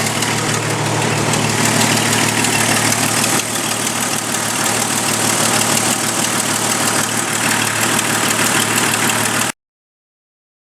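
1997 Jeep Cherokee XJ's 4.0L inline-six running steadily with a fast, even ticking. The tick is an exhaust leak where the header's cheap gasket has blown apart. The sound cuts off suddenly near the end.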